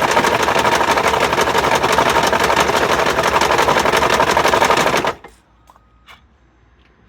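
2012 Jeep Grand Cherokee WK2's 3.0-litre V6 diesel running with a loud, rapid knocking clatter, the sign of crankshaft damage. The engine noise cuts off suddenly about five seconds in, leaving a few faint clicks.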